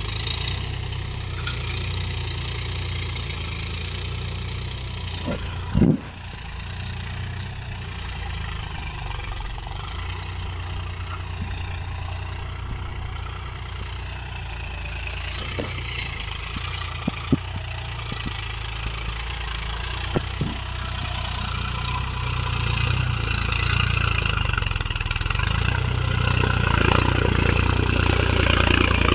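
Mahindra Yuvo Tech+ 415 DI tractor's diesel engine running steadily under load while pulling a nine-tine cultivator through the soil. It gets louder near the end as the tractor comes close. There is a short thump about six seconds in and a few sharp clicks later.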